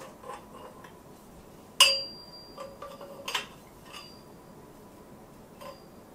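Metal tube sections of a trolley frame knocking together while being fitted: one sharp clank about two seconds in with a brief metallic ring, a second knock a little later, and a few light taps.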